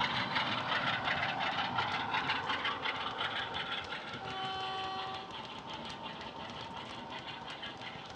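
A model Class 47 diesel locomotive's DCC sound decoder plays a Class 47 diesel engine sound through a small double iPhone speaker, with many fine clicks, as the model passes and draws away. The sound eases from about five seconds in. A brief steady tone of about a second sounds about four seconds in.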